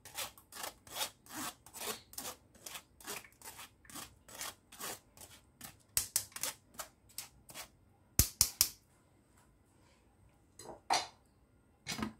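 A metal spoon scraping pomegranate pulp around a stainless steel mesh strainer in quick regular strokes, about three a second, pressing the juice through. The scraping stops after about seven seconds; a few sharp knocks follow, with two more near the end.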